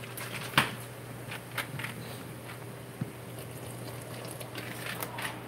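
Pot of seafood-boil broth bubbling: scattered small pops and clicks, the loudest about half a second in, over a low steady hum.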